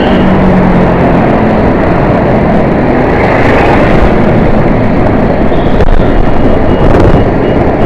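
Dense, loud road traffic: many vehicle engines running together in a steady din. A few short, high-pitched horn beeps sound near the end.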